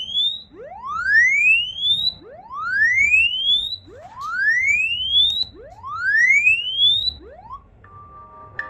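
Smartphone loudspeaker playing a test tone that rises in pitch from low to high, about a second and a half long and repeating four times, with a short cut-off sweep near the end. It is a sound check of the OnePlus Nord CE 2 Lite after its WCD9370 audio codec IC was replaced, and the tone comes through clean.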